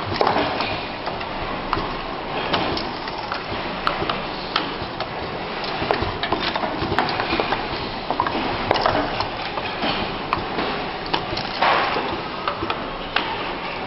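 WDT-4R10P four-station automatic relay soldering machine running: frequent irregular clicks and clacks over a steady noisy background.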